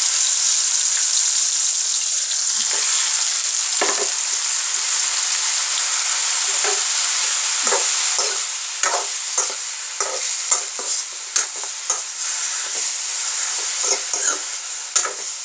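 Freshly washed mushroom pieces sizzling loudly in hot oil in an aluminium kadai; the sizzle eases a little in the second half. From about eight seconds in, a spatula stirs them, with short scraping clicks against the pan.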